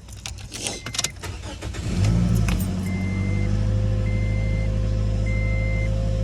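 A few clicks and rattles, then about two seconds in the 2008 Scion xD's 1.8-litre four-cylinder engine starts and settles into a steady idle on fresh oil. A short high warning chime beeps repeatedly, about once a second.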